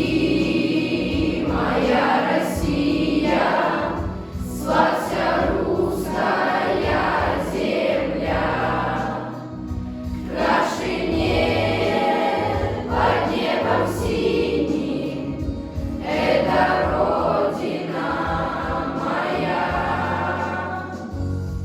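Sixth-grade school class choir singing a Russian patriotic song in unison over an instrumental backing track, in phrases with short breaths between them.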